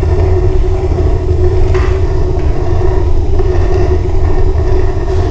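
Homemade waste oil furnace burning, a loud steady rumble with a constant hum over it.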